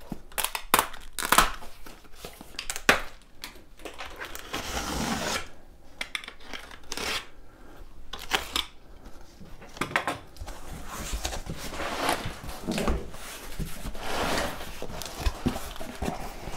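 Cardboard shipping carton being opened by hand: packing tape cut and torn, with cardboard flaps and packing pieces scraping, rustling and knocking in irregular bursts.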